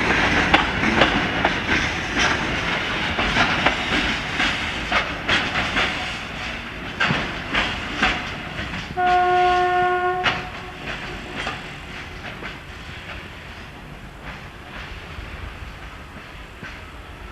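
Freight train's wheels clattering over rail joints, the clicks thinning and fading as it moves away. About nine seconds in there is one horn blast lasting a little over a second.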